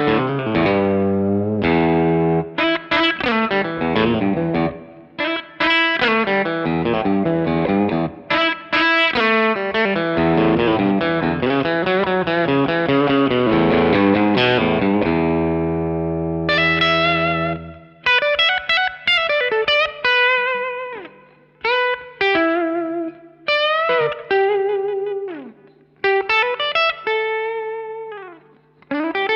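B&G Little Sister electric guitar through a Suhr Badger 35 amp set at the edge of breakup, lightly driven with added reverb. It plays chords and low notes for the first half, then switches to single-note lead phrases with string bends up and down over a held low note.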